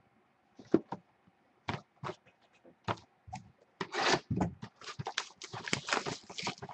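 A sealed trading-card box and clear plastic wrapping being handled: scattered sharp crinkles and taps that come much thicker about four seconds in.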